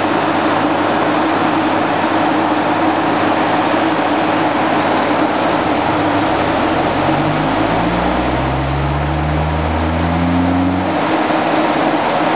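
Seismic vibrator (vibroseis) trucks running with a steady engine drone. About five seconds in, the vibrator baseplate on the ground starts a sweep: a low hum that rises steadily in pitch for about five seconds and then cuts off suddenly. This is the sweep that shakes the ground to send seismic waves down for a 3-D seismic survey.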